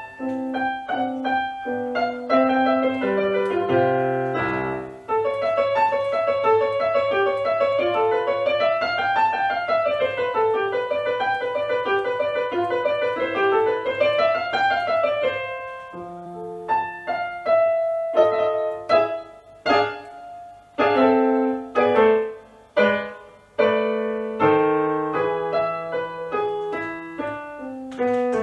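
Solo digital piano played from sheet music: separate notes and chords, then about ten seconds of fast rippling runs that rise and fall twice, then slower, detached chords with short pauses between them.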